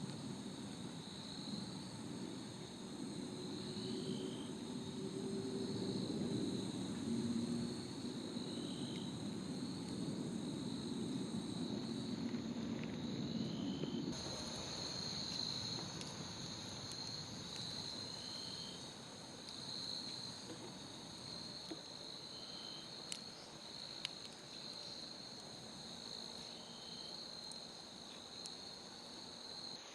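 Crickets and other night insects trilling steadily, with a short chirp repeating every two seconds or so. A low rumble underneath fades out about halfway, and the campfire gives two sharp crackles about three-quarters of the way in.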